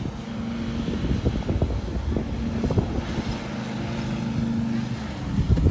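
Riding lawn mower engine running steadily at a constant pitch as the mower drives across the grass, cutting.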